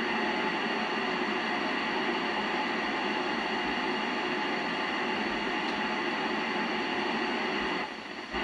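Steady receiver static from a Yaesu FT-847 transceiver's speaker while it listens on the ISS downlink near 437.8 MHz, with no station coming through. The hiss dips briefly near the end.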